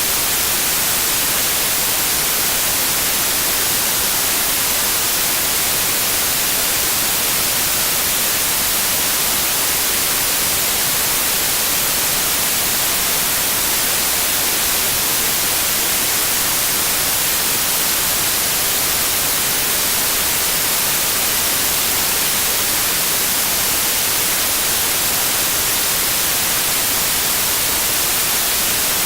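Steady, unchanging white noise: an even hiss across the whole range, strongest in the treble.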